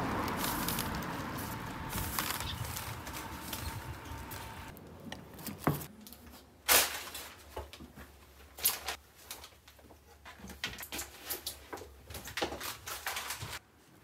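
Steady rush of wind and road noise while riding a bicycle. After about five seconds it cuts indoors: a few sharp clacks of a door being opened and shut, then small clicks and the crinkle of a kraft-paper wrapping handled while walking in.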